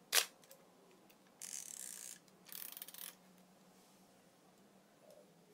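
Zenit EM 35mm SLR firing: one sharp shutter click, then the film advance lever wound with two ratcheting rasps.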